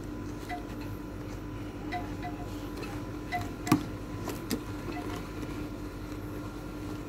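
Scissors snipping into a taped parcel: a handful of scattered sharp clicks, the loudest a little past halfway, over a low steady hum.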